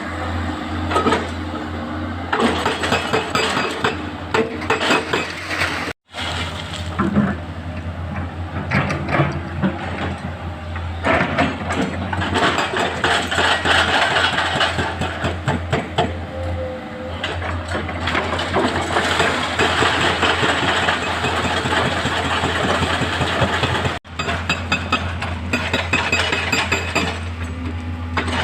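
Heavy diesel engines of excavators and a dump truck running steadily, with irregular rattling and clatter over a constant low hum.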